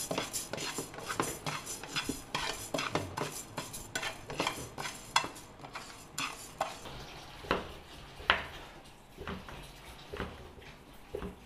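Wooden spatula stirring and scraping dry raw rice grains around a nonstick frying pan, a quick run of scrapes and rattles as the rice is toasted for porridge. In the second half come fewer, separate knocks, the loudest about eight seconds in: a kitchen knife cutting carrot sticks down onto a plastic cutting board.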